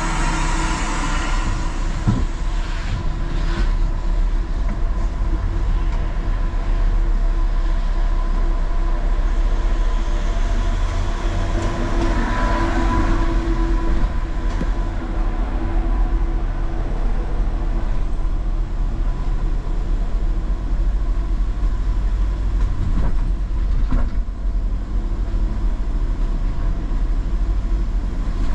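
Low, steady rumble of a car driving slowly along inside a Eurotunnel shuttle's enclosed car-carrying wagons, with a steady hum throughout and a few short knocks, twice near the start and once more near the end.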